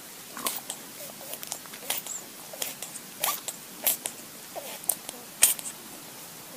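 A young furry animal making a string of short, irregular squeaks and mouth clicks, about one or two a second, with the sharpest click about five and a half seconds in.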